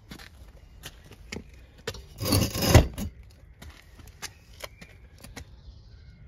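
A run of sharp clicks and knocks, with one loud scraping rush a little over two seconds in that lasts under a second.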